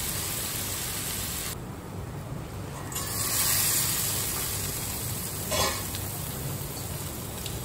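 Potatoes and okra frying in mustard oil in a kadhai, a steady sizzle, with a brief clatter about five and a half seconds in.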